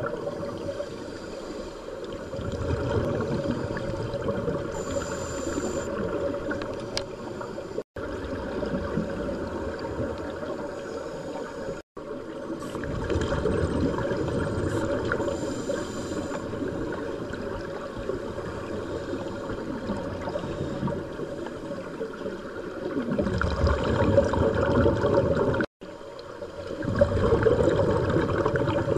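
Scuba divers' exhaled bubbles gurgling and rushing, heard underwater, growing louder in stretches of a few seconds. The sound cuts out abruptly three times for an instant.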